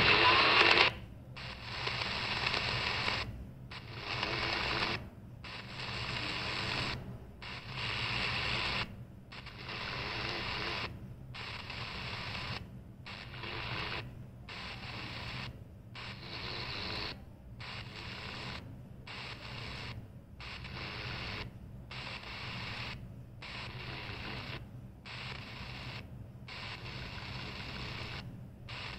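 Static hiss from a CS 106 DSP radio's speaker as it is stepped up the medium wave band one channel at a time. The sound cuts out briefly at each step, about every second and a half.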